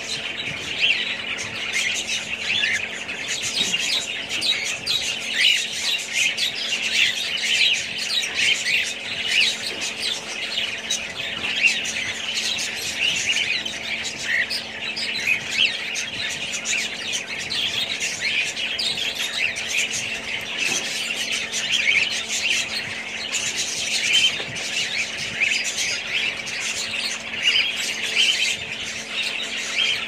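A flock of aviary parrots, cockatiels among them, chattering all at once: continuous overlapping chirps and squawks with no pause. A faint steady hum runs underneath.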